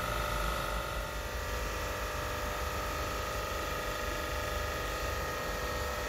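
Ammonia refrigeration plant machinery running in its machine room: a steady hum with several high whining tones over a low rumble.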